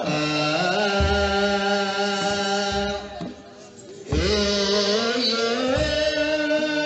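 Ethiopian Orthodox Yaredic hymn, a group holding long notes in unison that slide from one pitch to the next, with low drum strokes from a kebero. The sound drops briefly about three seconds in and the group comes back in strongly about four seconds in on a rising note.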